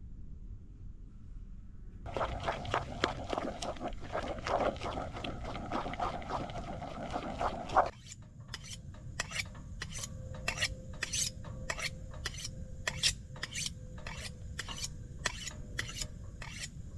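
Utensil scraping and tapping on cookware or a plate. It starts with a dense run of quick scrapes, changes abruptly about eight seconds in, and goes on as sharp separate taps about two a second.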